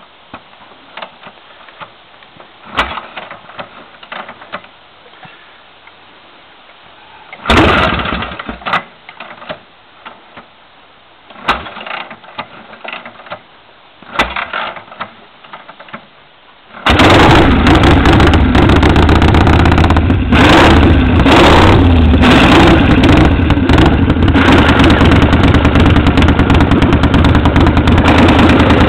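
Freshly rebuilt 1948 Harley-Davidson panhead V-twin being kick-started. It gives three short sputters that don't catch, then about seventeen seconds in it fires and keeps running loud and steady.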